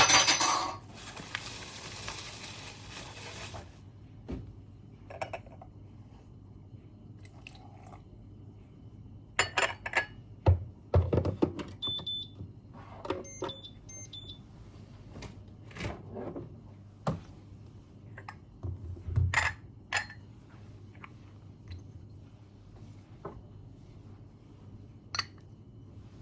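Everyday handling sounds: a sudden start with a hiss lasting about three seconds, then scattered knocks, clinks and clicks like dishes or objects being set down, with a few short high beeps in the middle.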